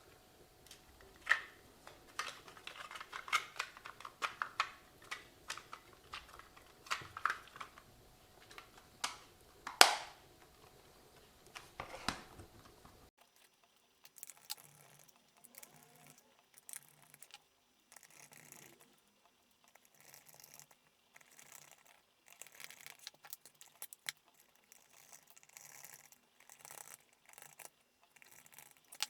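Plastic clicks, taps and handling noises from a handheld RC transmitter case being fitted back together, with a sharp click about ten seconds in. After about thirteen seconds, only faint scraping and tapping.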